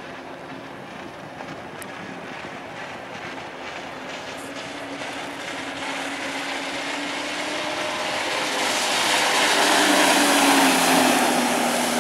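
Jet ski engines running at speed as the watercraft approach, the drone and rush of water growing steadily louder to its loudest about ten seconds in, then easing a little as the engine pitch drops.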